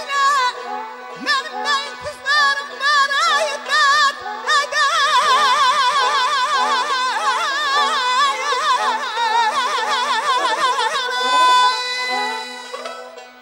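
Azerbaijani mugham singing: a male khanende sings with dense, rapid trilled ornaments (tahrir) through the middle of the passage, accompanied by tar and kamancha with a steady held low note underneath. The singing and playing die down near the end.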